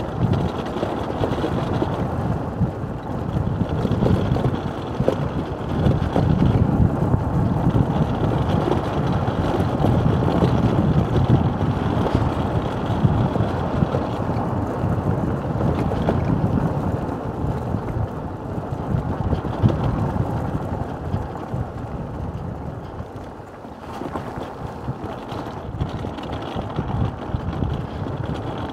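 Wind buffeting the microphone over the crunching rattle of a mountain cart's tyres rolling downhill on a gravel road. The cart is unpowered, so there is no engine. The noise dips briefly about three-quarters of the way through.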